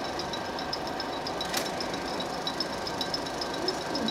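16mm film projector running, its mechanism making a rapid, even ticking, with a single sharp click about one and a half seconds in.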